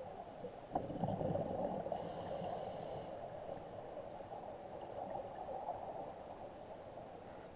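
Scuba diver breathing through a regulator, heard underwater: a louder, bubbly exhale starts suddenly about a second in and lasts about two seconds, over a steady muffled underwater rush.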